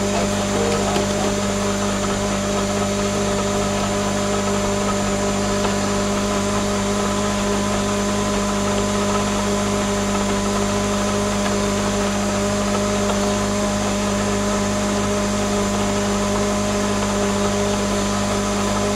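Countertop blender running at one steady speed, blending a liquid mixture, with an even, unchanging motor hum.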